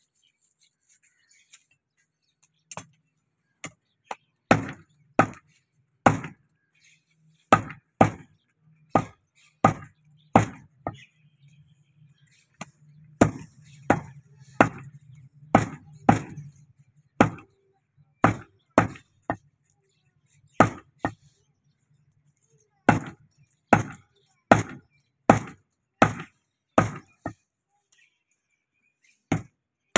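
Heavy meat cleaver chopping beef on a wooden log chopping block: sharp single chops, roughly one or two a second with a few short pauses, starting about three seconds in.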